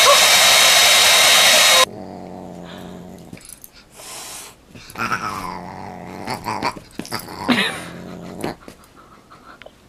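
Hand-held hair dryer blowing loudly, cut off suddenly about two seconds in. Then quieter animal cries that slide up and down in pitch, from a cat and dog squaring off.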